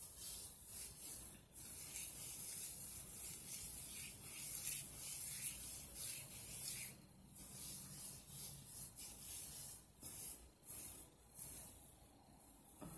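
Hands working through hair close to the microphone: an uneven scratchy rubbing, with a few short breaks in the second half.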